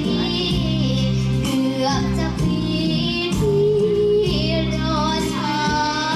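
A young girl singing a Thai luk thung song into a microphone over amplified instrumental accompaniment with a steady bass line. Her melody wavers with ornaments, and she holds one note for almost a second near the middle.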